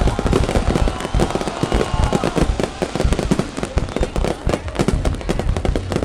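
Aerial fireworks going off in a dense barrage: rapid, overlapping cracks and bangs, several a second, with a few faint whistles among them.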